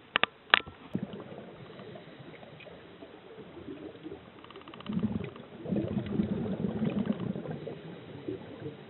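Underwater, a few sharp clicks just after the start, then a low bubbling rumble for about two and a half seconds from the middle: a scuba diver's exhaled air bubbling out of the regulator.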